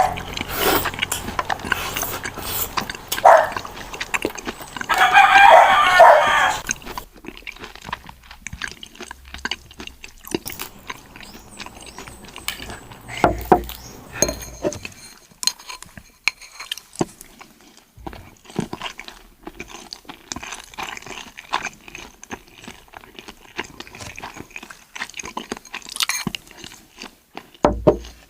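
Close eating sounds of seafood being chewed and crunched: irregular clicks and crackles, with a louder crunching stretch about five seconds in.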